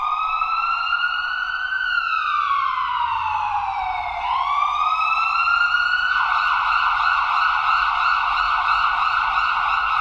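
Electronic ambulance siren wailing, its pitch rising and falling slowly, then switching about six seconds in to a fast yelp.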